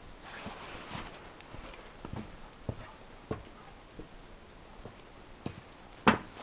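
Hand-handling noises while twisting and squeezing an ignition wire connection on an old chainsaw: scattered light clicks and rustles, with one sharp knock about six seconds in.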